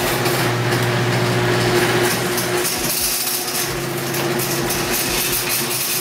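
Garage door opener running as the sectional door rolls up: a steady motor hum under a constant noisy rattle from the door.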